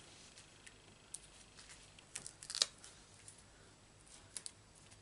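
Faint ticks and rustles of foam adhesive dimensionals being picked and peeled off their sheet by hand, with a small cluster of clicks a little past halfway.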